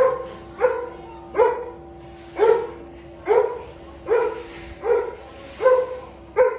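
Young kittens mewing: a steady series of short, falling calls, about one every second.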